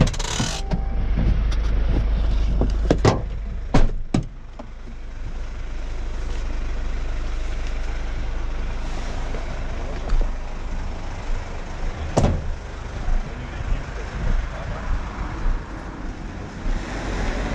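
Engine and road noise inside the cab of a rescue vehicle on the move, a steady low rumble. A few sharp knocks and clicks come about three to four seconds in, and one more about twelve seconds in.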